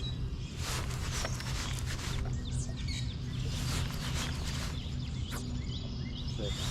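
Small birds chirping over a steady low hum, with a few short knocks.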